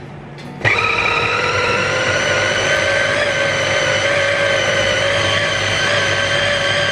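Borosil electric mini chopper switched on by pressing its top, starting suddenly about a second in and then running steadily with a high motor whine that rises slightly in pitch before settling. It is grinding raw chicken and shrimp into a paste.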